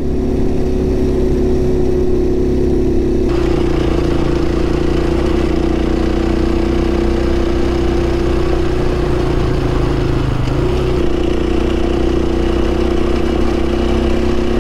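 Motorcycle engine running steadily at a constant cruising note, heard from the bike itself. Wind and road noise rise a few seconds in, and the engine note dips briefly about ten seconds in.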